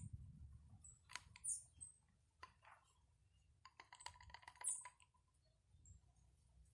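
Near silence with a few faint clicks and taps from a paint roller being worked in an open can of water-based paint, in two short clusters about one second in and around four seconds in.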